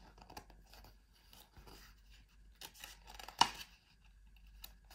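Paper rustling as a picture book's page is handled and turned, with one sharp paper snap about three and a half seconds in.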